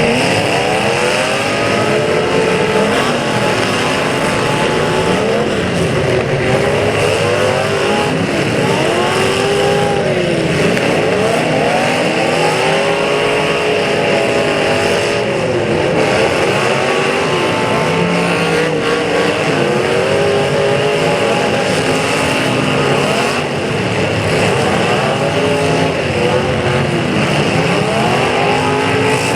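Several demolition derby cars' engines revving hard at once, their overlapping pitches rising and falling again and again as the cars accelerate and back off.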